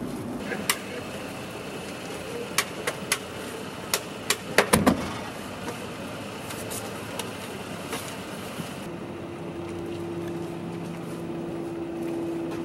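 A car's door and handle clicking several times, then a heavier thump about five seconds in, over a steady background hiss. A low steady hum comes in near the end.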